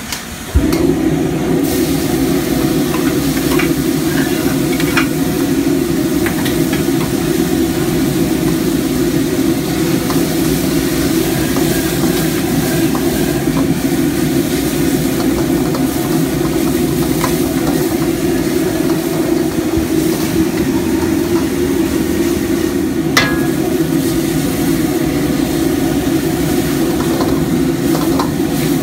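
Porridge frying in a carbon-steel wok over a gas wok burner, stirred and scraped with a metal ladle. A loud steady low rush starts suddenly about half a second in as the porridge goes into the hot wok, with scattered sharp clinks of the ladle against the wok.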